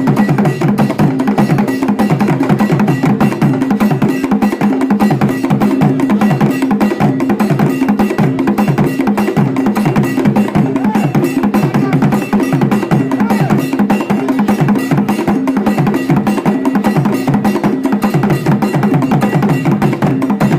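Closing music built on fast, steady percussion with rapid, evenly repeating strokes over a low pitched line.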